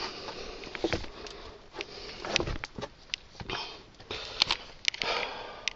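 Scuffs, crunches and scattered sharp clicks from shoes and hands on loose rock and gravel while clambering into a small cave, mixed with breathing.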